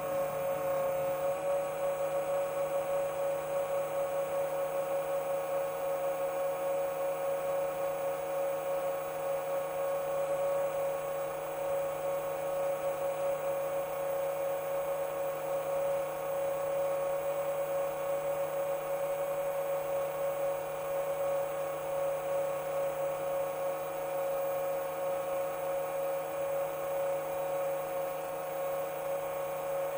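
Motors and propellers of a Chimera 7 LR long-range FPV quadcopter holding a steady cruising throttle: an even, high-pitched whine with many overtones.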